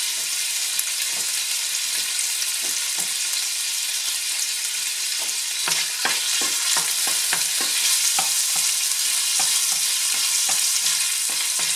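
Small bits of ham fat sizzling as they render in a hot stainless steel sauté pan. From about halfway through, a wooden spatula scrapes and taps against the pan as the pieces are stirred.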